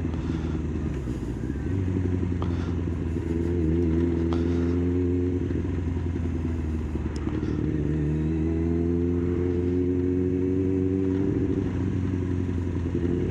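Kawasaki ZX-9R inline-four motorcycle engine running at low road speed, heard from the rider's seat, its note rising and falling gently with the throttle, a little higher about three seconds in and again from about eight seconds.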